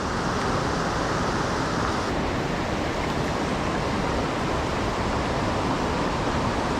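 Steady rushing of a fast, high-running stream.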